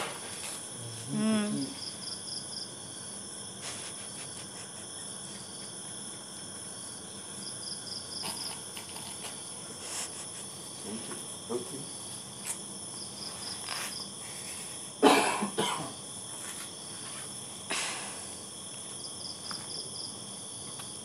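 Night insects chirping steadily, with a short trilled chirp repeating about every five seconds. About fifteen seconds in, a person gives one loud cough, and a smaller one follows a few seconds later.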